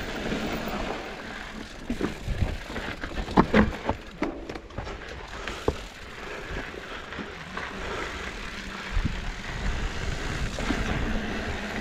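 2021 Ibis Ripmo AF mountain bike rolling down dry dirt singletrack: steady tyre and trail noise, with a cluster of sharp knocks and rattles from the bike over bumps, loudest about three and a half seconds in.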